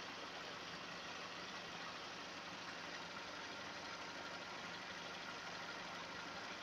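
Audi A4 B7 1.6 (75 kW) four-cylinder petrol engine idling steadily, with a running noise that its owner is unsure is normal.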